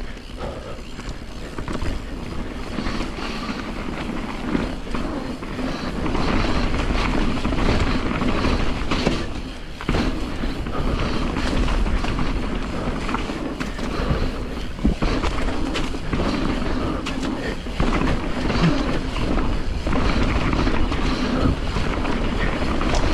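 Nukeproof Giga carbon full-suspension mountain bike rolling fast down a dirt trail: tyre noise on dirt with steady rattling and knocking from the chain and frame over bumps.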